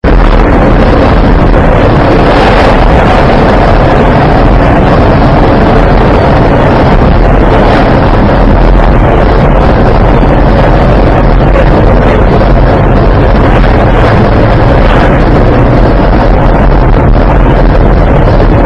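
Steady, loud road and wind noise inside a car driving at highway speed, picked up by a dashboard camera's microphone.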